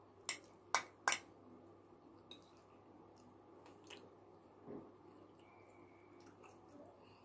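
A metal fork clicking sharply against a plate three times within the first second or so, as it cuts into a portion of baked macaroni, then only faint soft sounds.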